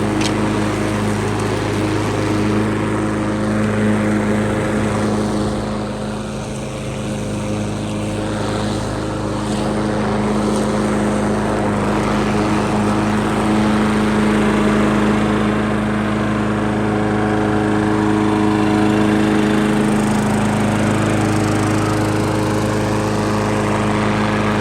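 Craftsman self-propelled walk-behind lawn mower's small engine running steadily and smoothly, its sound dipping slightly for a couple of seconds a few seconds in. It is running really good with its new control cable.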